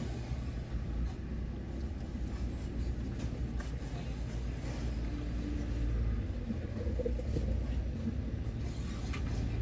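Mitsubishi L300 FB light truck driving slowly along a street: a steady low engine and road rumble.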